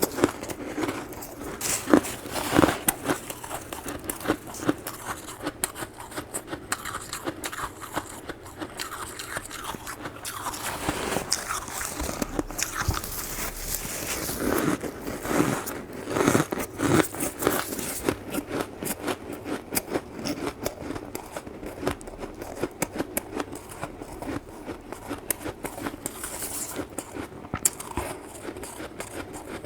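Close-up crunching and chewing of soft, powdery freezer frost in the mouth: a dense run of irregular crisp crunches, with louder bites every second or so.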